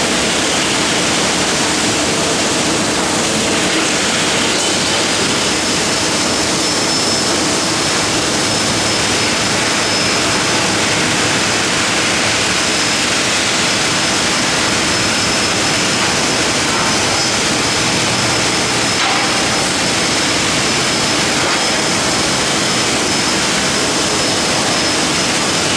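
MIG welding arc of a CNC gantry welding machine running a long continuous weld: a loud, steady, unbroken hiss with a faint high whine that comes in about five seconds in.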